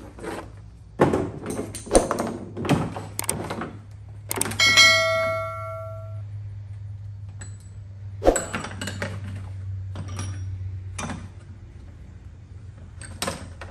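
Metal hand tools and a tool case being handled: a quick run of knocks and clatters, then one metal piece rings out for about a second and a half, followed by a few more clicks and knocks. A steady low hum lies underneath.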